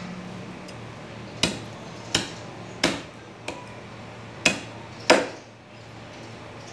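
Machete chopping beef ribs on a wooden tree-stump block: six sharp chops about two-thirds of a second apart, starting about a second and a half in, the fourth one light and the sixth the loudest.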